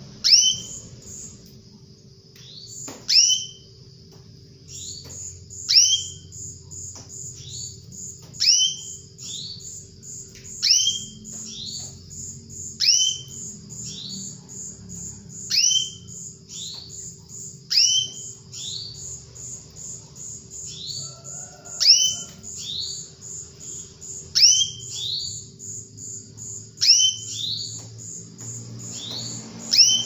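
Female domestic canary calling to a male: a sharp call sweeping downward, repeated about every two to three seconds, over a fast steady run of very high pips.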